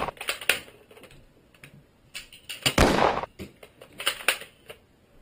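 Quick clicks and clacks in three clusters, with a heavier knock a little under three seconds in.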